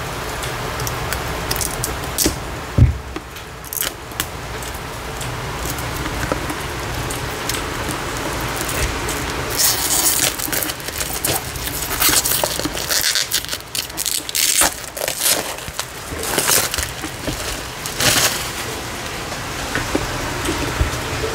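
Hands handling a boxed card deck and its packaging: irregular crinkling and scraping with sharp clicks, busiest in the second half, over a low steady hum.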